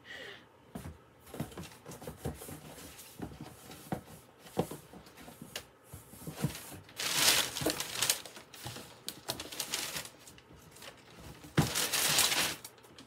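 Rummaging through a shipping box: packaging crinkling and rustling, with scattered knocks and taps of things being moved. There are two longer, louder bouts of rustling, one about halfway through and one near the end.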